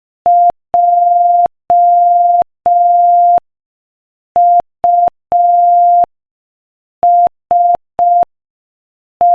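Morse code sent as a single steady beep tone at 5 words per minute, in short dits and long dahs. The beeps spell J (dit dah dah dah), U (dit dit dah) and S (dit dit dit), and the long dah of a T starts near the end, making the word "JUST".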